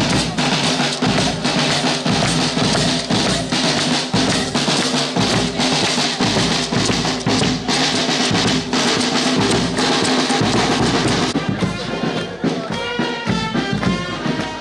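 Drumming and hand clapping with a fast, steady beat. Voices singing join in over the drums in the last few seconds.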